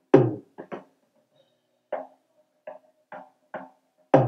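Recorded tom-tom drum track played back through a digital mixing console: a pattern of drum hits, with a heavy hit just after the start and another just before the end, lighter hits between and a faint ring after them. The track is heard while its equaliser is being adjusted to find and cut the tom's boxy frequency.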